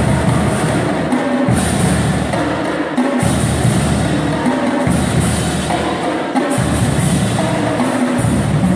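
Middle school marching band playing, with drums and bass drum prominent.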